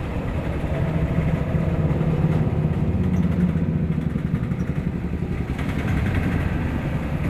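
A motor engine running steadily with a low hum that swells through the first half and then eases off.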